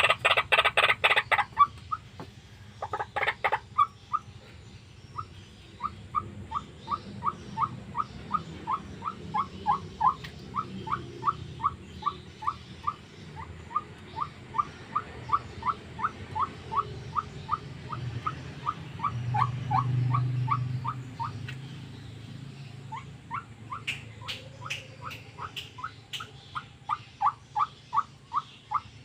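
White-breasted waterhen (ruak-ruak) calling: a long, regular series of short, sharp notes, about three a second. It opens with a denser, louder burst of notes and breaks off briefly for a couple of seconds late on before resuming.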